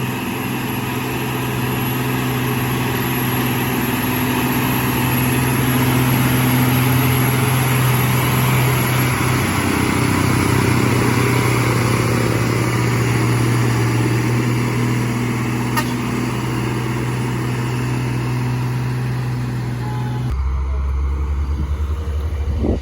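Diesel engine of a loaded Hino truck labouring up a steep climb, a steady low drone. Near the end the sound changes abruptly to a quieter, deeper hum.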